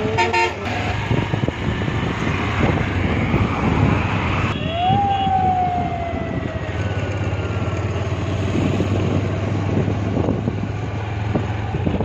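Steady engine drone and road noise from traffic. A short vehicle horn toot comes right at the start, and about four and a half seconds in a horn sounds for a couple of seconds, its pitch sliding down.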